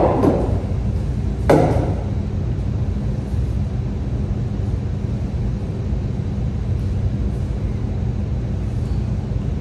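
A steady low background rumble, with one short sharp noise about a second and a half in.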